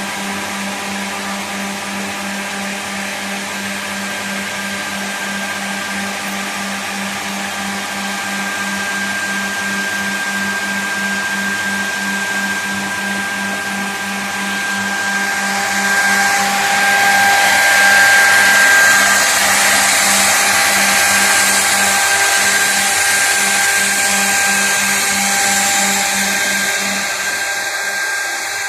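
Griggio GB 4/8 through-feed edge banding machine running, with a steady motor hum and whine. About halfway through, a louder high hiss joins in for about ten seconds, and the low hum stops near the end.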